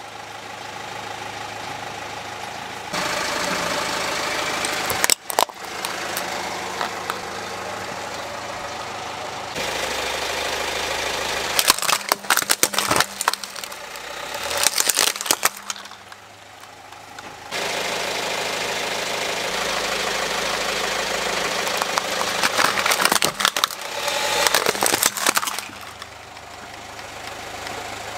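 Car engine idling while a tyre rolls over plastic toys, which crack and crunch in several bursts of snapping.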